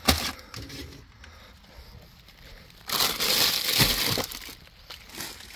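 Plastic candy bags crinkling and rustling as they are handled and pulled from a cardboard box, loudest from about three seconds in, with a couple of soft knocks.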